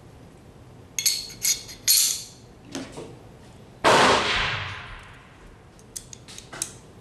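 Metal pistol parts of a field-stripped Walther Q5 Match clicking and rattling as the barrel and recoil spring assembly are handled and fitted into the slide during reassembly. There is a loud clang about four seconds in that fades over about a second, and a few small clicks near the end.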